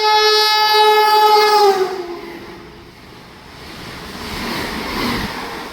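A train horn is held loud for nearly two seconds, and its pitch sags as it cuts off. A passing train's rushing rumble then builds up, at its loudest about five seconds in.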